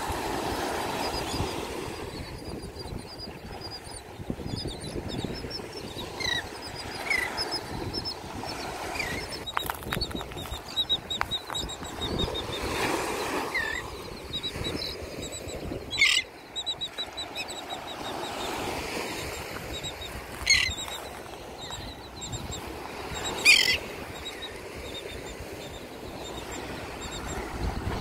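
A beach flock of royal terns and gulls calling: many short high calls and chattering runs of notes, with three louder close calls in the second half. Under them is the wash of small waves breaking on the shore.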